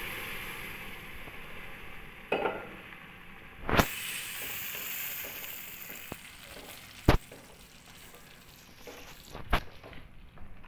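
Boiled chickpeas sizzling in hot masala in a metal kadai, the hiss dying down as they go in. A wooden spatula stirs them and knocks sharply against the pan four times, loudest about 4 and 7 seconds in.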